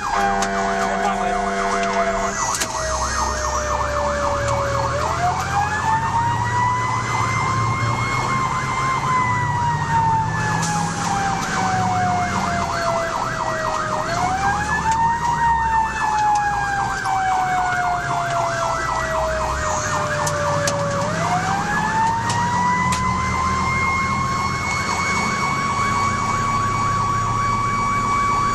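Fire engine sirens heard from inside the cab. A wail winds up in pitch over a few seconds, holds, then slowly falls away, three times, while a faster yelping warble runs over it. A steady horn tone sounds for the first couple of seconds, and the truck's diesel engine rumbles underneath.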